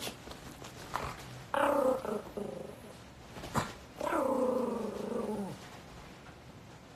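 A dog growling twice, in drawn-out grumbles. The second growl is longer and falls in pitch. A sharp click comes between them.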